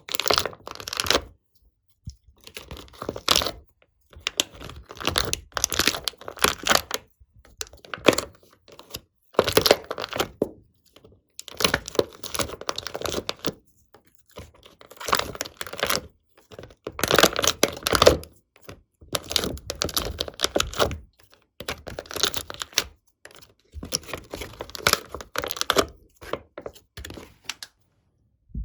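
Slime being squished and kneaded by hand, with sticky crackling and clicking of small air pockets popping. It comes in short bursts of a second or two, separated by brief silences.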